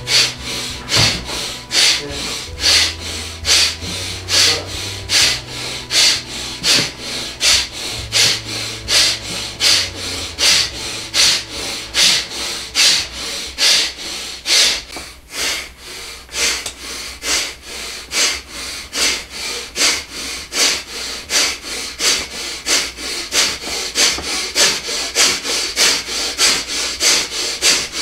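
Rapid, forceful rhythmic breathing, a sharp breath with each swing of the arms, about two a second and quickening a little toward the end.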